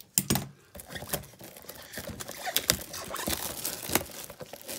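Plastic shrink wrap being torn and peeled off a cardboard trading-card box, giving a continuous run of crinkles and crackles.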